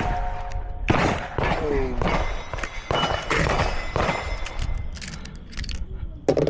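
Several .44 Magnum handgun shots about a second apart, with steel targets clanging and ringing as they are hit. The shots thin out and grow quieter through the middle, and a last sharp crack comes near the end.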